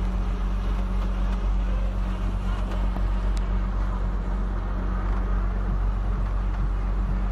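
A vehicle's engine running steadily: a constant low drone and hum with no change in speed.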